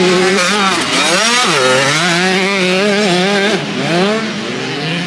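Several motocross bikes racing, their engines revving up and down through the gears with overlapping pitches; one engine drops sharply and climbs again about a second and a half in.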